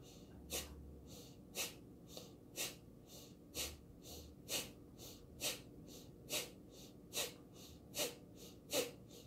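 Breath of fire, the Kundalini yoga breathing exercise: about ten short, sharp exhalations pushed out through the nose by the belly, roughly one a second and quickening slightly near the end.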